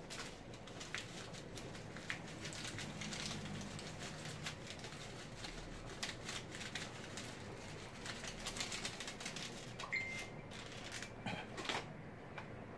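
Small seasoning jar shaken over a cooking pot: spells of quick, light rattling clicks, with scattered clinks from kitchen utensils and pot lids.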